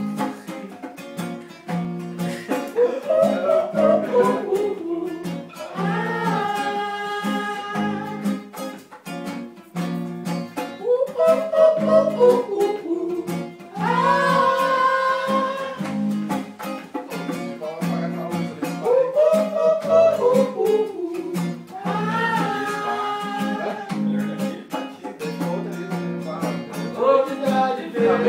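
Acoustic guitar strummed while a voice sings, in phrases a few seconds apart.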